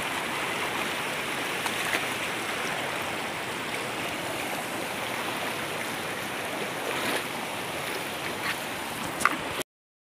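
Shallow stream rushing and gurgling over rocks, a steady wash of water sound. A sharp click comes shortly before the sound cuts off suddenly near the end.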